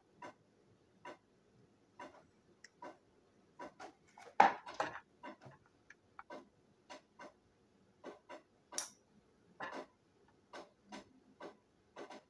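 Light, sharp ticks coming about twice a second, with a louder clatter of small parts being handled about four seconds in.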